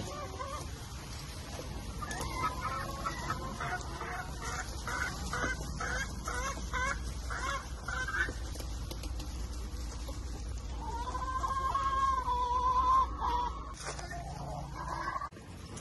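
Hens clucking close by: a quick run of repeated clucks, then a drawn-out wavering call a few seconds later. A pickup truck's engine rumbles low underneath as it backs up to a trailer.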